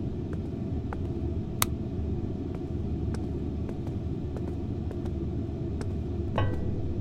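Low, steady rumbling drone with scattered faint clicks and one sharper click. Near the end comes a brief clank with a short metallic ring.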